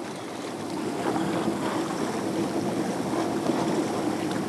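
Wind and sea water rushing around a kayak on the open ocean, an even rushing noise, with a faint steady hum that comes in about a second in.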